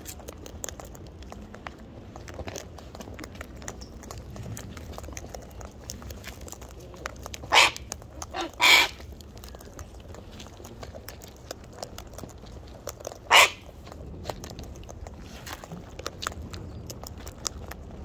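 Sulphur-crested cockatoos feeding from a plastic tub of seed, their beaks cracking and crunching it in many small clicks. Three short, loud bird squawks break in: two close together about halfway through, and one about five seconds later.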